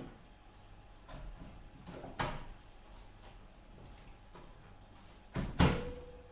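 Clicks and knocks of a graphics card being fitted into a PC case, with a sharp knock about two seconds in and two loud clunks near the end, the second leaving a brief ringing tone.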